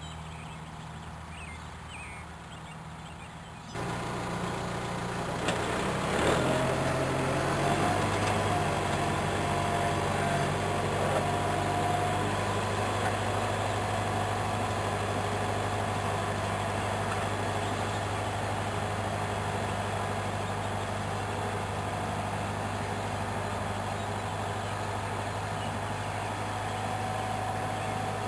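Farm tractor engine running steadily as it pulls a mechanical tree planter through the field. It is faint for the first few seconds, then suddenly louder and closer from about four seconds in.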